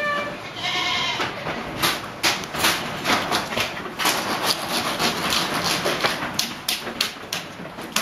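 A goat bleats once about a second in, then goat hooves clatter in quick, irregular clicks on the floor as the goats come out.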